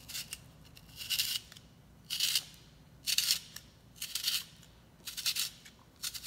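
Handheld spiralizer blade shaving a vegetable into spiral strands as it is twisted: a crisp, scratchy rasp with each turn, about once a second.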